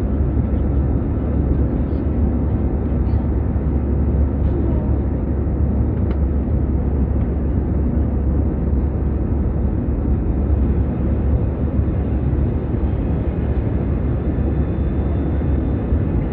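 Steady low-pitched rumble inside an airliner cabin in flight, from the engines and the air rushing past.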